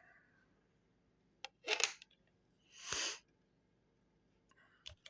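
Small metal clicks and clinks from lock-picking tools and the lock being handled and set down: a quick cluster about one and a half to two seconds in, a few more near the end. A short breathy rush comes about three seconds in.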